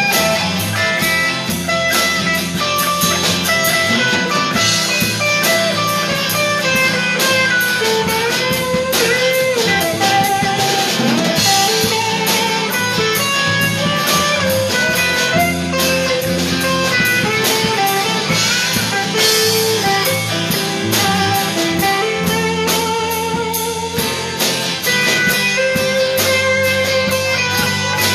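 Live blues band playing an instrumental stretch: electric guitars, bass guitar and drum kit, with a lead guitar line of bent, wavering notes.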